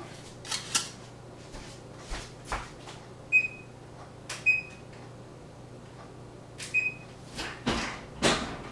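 Kitchenware being handled: a series of irregular knocks and clatters, three of them with a short high ring as a hard utensil strikes cookware.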